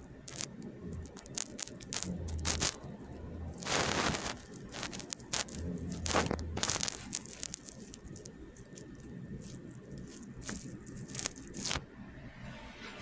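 Small dog snoring: rough low breaths recur every second or two, the loudest a noisy snort about four seconds in, among scattered clicks and rustles.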